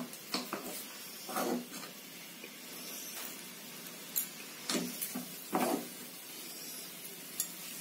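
A few soft knocks and scrapes of a steel ladle against a plate as ladle-moulded mounds of rava kichadi are turned out, short separate sounds over a steady low hiss.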